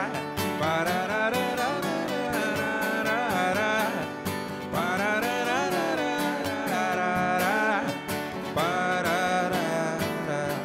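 Live acoustic band: two strummed acoustic guitars with a man singing a slow, sustained melody.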